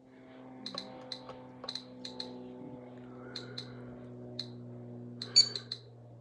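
GQ GMC-500+ Geiger counter clicking at irregular intervals, one tick per detected count, as uranium ore held against it raises the count rate. The ticks come closer together near the end, over a steady low hum.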